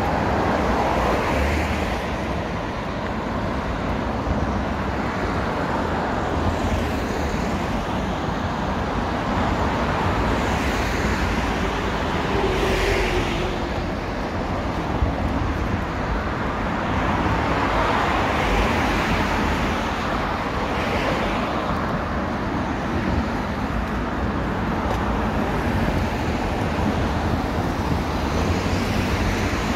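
Steady road traffic, with several vehicles swelling past one after another.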